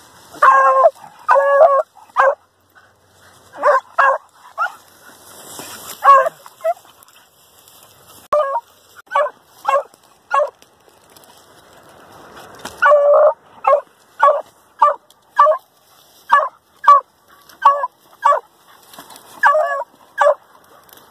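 Hunting dogs barking over and over into a burrow where they have cornered an armadillo: short, sharp barks, one to two a second. In between come patches of scraping dirt.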